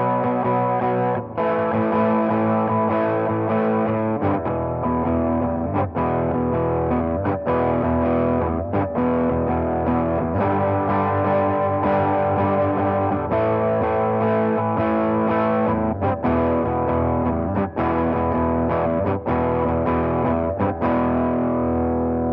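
Electric guitar played through a Custom Screamer V2, a Tube Screamer–style overdrive pedal. Sustained overdriven chords are broken by brief gaps at the chord changes and let ring to fade near the end.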